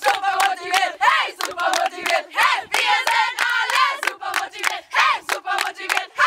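A group of young women shouting and chanting together over frequent hand claps.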